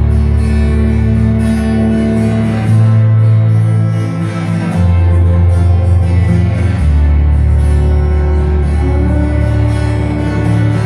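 Music with guitar over sustained bass notes that shift to a new pitch every two seconds or so.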